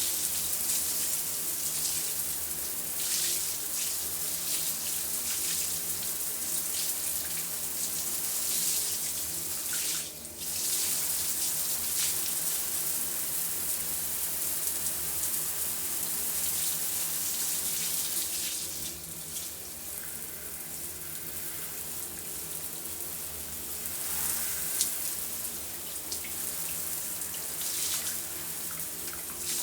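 Shower running: a steady hiss of spraying water. The spray drops out briefly about a third of the way in and goes softer and duller for a few seconds past the middle.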